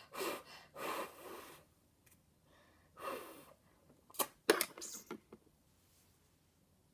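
A person's breath: three or four short, breathy puffs, then a quick cluster of sharp clicks about four seconds in.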